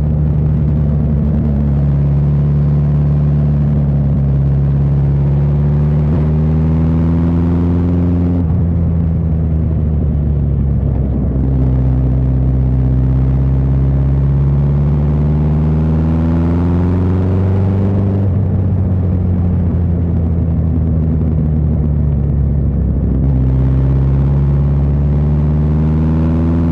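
Suzuki GSX1300R Hayabusa inline-four engine heard from the rider's seat under way. Its pitch rises steadily as it accelerates, then falls twice while the throttle is closed and the engine slows, before pulling again.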